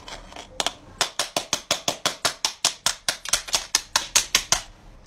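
A fast, even run of sharp taps or clicks, about six a second, from quick hand work. It starts about a second in and stops near the end.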